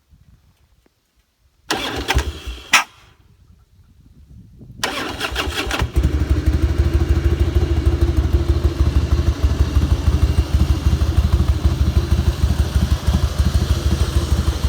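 A Harley-Davidson FLSTF Fat Boy's V-twin being started: a short first crank ends in one sharp, loud pop, the 'sneeze', a backfire typical of a start on a carbureted Harley. It is then cranked again, catches about six seconds in, and idles with an uneven, lumpy beat.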